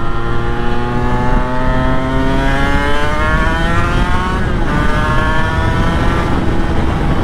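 Honda NSR250R MC21's two-stroke V-twin engine pulling hard, its pitch rising steadily. About four and a half seconds in there is a brief break as it shifts up, and it picks up again at a lower pitch before easing off near the end. Wind rushes on the microphone throughout.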